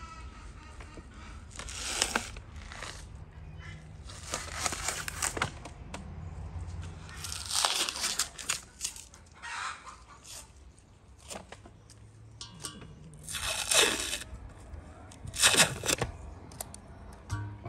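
Thin membrane being peeled and torn off a rack of raw beef ribs by hand, in about five separate ripping pulls of a second or so each.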